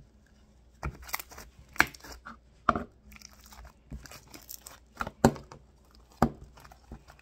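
Sticky homemade slime being squished and pulled apart in the hands, giving irregular sharp pops and crackles starting about a second in.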